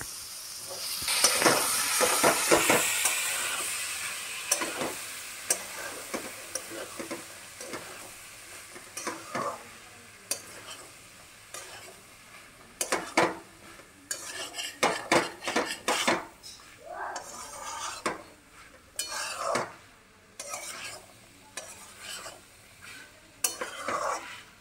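Boiled chickpeas and peas sizzling in spice paste and oil in a kadai, stirred and scraped with a steel spatula. The frying hiss is strongest in the first few seconds and then fades, while the spatula scrapes and clinks against the pan in short strokes. This is the masala being sautéed into the chickpeas.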